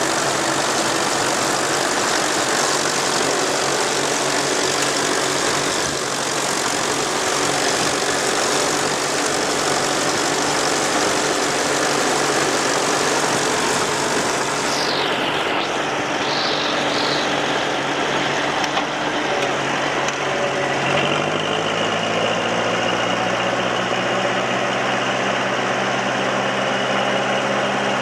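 Ferguson TEA20 tractor engines of a tandem rig running steadily while ploughing. About 21 seconds in, the engine note rises slightly and holds at the higher speed.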